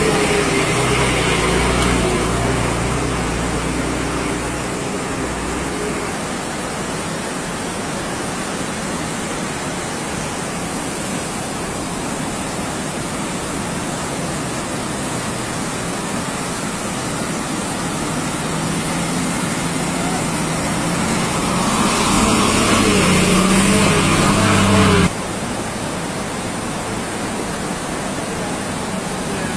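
Muddy floodwater rushing steadily across a road, with a bus engine running as it drives through the water. Near the end a bus engine grows louder, then the sound drops off suddenly.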